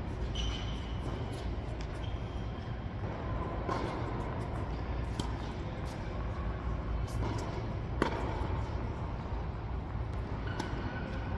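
Tennis ball struck back and forth by racquets in a doubles rally on an indoor hard court: several sharp pops a second or two apart, the loudest about eight seconds in. Short high squeaks from shoes on the court come in between, over a steady low hum from the hall.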